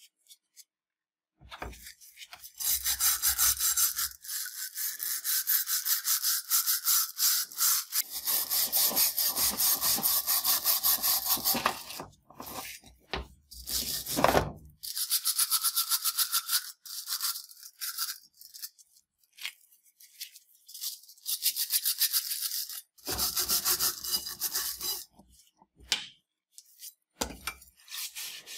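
Hand-held steel wire brush scrubbing the rusty steel blade of a Mauser 98K bayonet in rapid back-and-forth strokes, in three long bouts with short pauses between.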